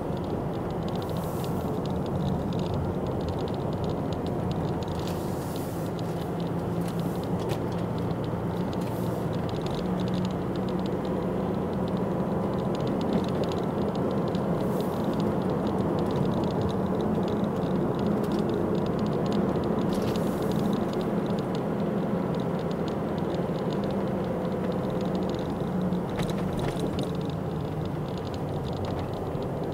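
Car driving, heard from inside the cabin: a steady engine hum with tyre and road noise, and a few brief hissy rattles.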